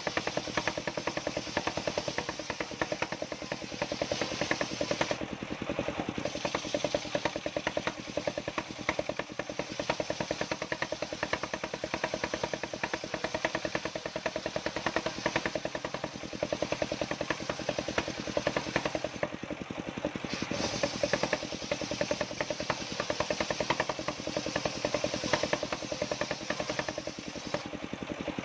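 An engine running steadily, with a rapid, even pulsing.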